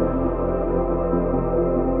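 Ambient background music: sustained synthesizer pads over a low steady drone.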